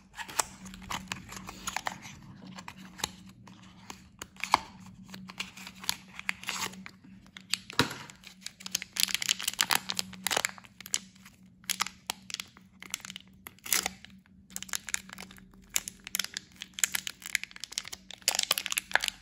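Black foil blind-box pouch crinkled and torn open by hand: irregular crackling and rustling throughout.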